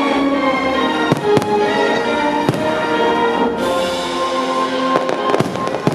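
Fireworks bursting over loud music, with a handful of sharp bangs: two about a second in, one in the middle and two more near the end.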